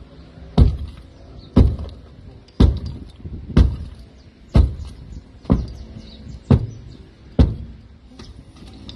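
Eight heavy blows about a second apart, struck against a brick wall to break through it.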